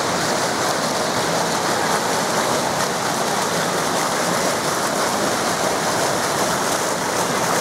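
Steady rush of water-park water pouring and splashing, an even wash of noise with no breaks.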